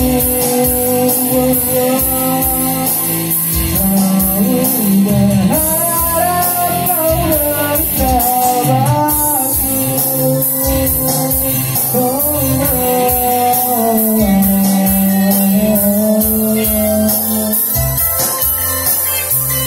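A small band playing live: a male vocalist singing over electric guitar and keyboard.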